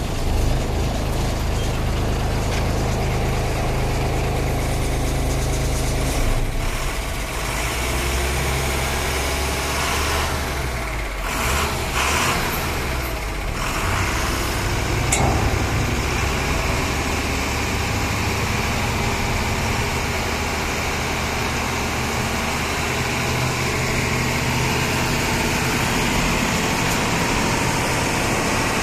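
Tipper truck's diesel engine running steadily, driving the hydraulic pump that extends the HYVA telescopic cylinder to raise the dump body.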